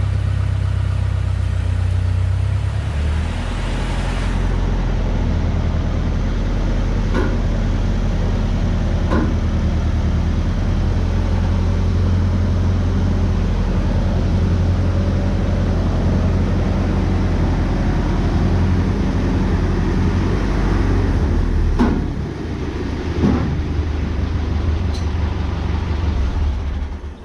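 Engine idling steadily with a deep, even note that shifts about three seconds in and again near the end, with a few light knocks over it.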